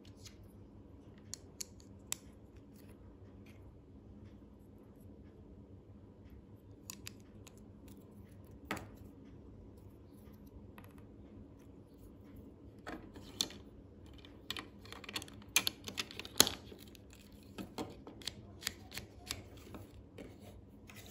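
White plastic Lego plates clicking and snapping together as they are pressed onto the build: scattered sharp clicks, few at first and coming thick in the second half.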